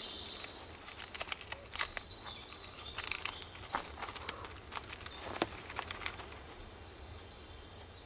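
Faint, irregular small clicks and crackles of a Siberian chipmunk gnawing at a Siberian pine cone, prising out the nuts.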